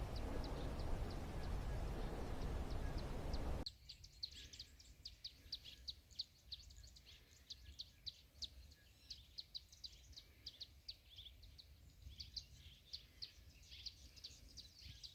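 Wind buffeting the microphone, a steady rushing noise with birds chirping faintly behind it; about three and a half seconds in the wind noise cuts out suddenly, leaving many small birds chirping in quick, high calls.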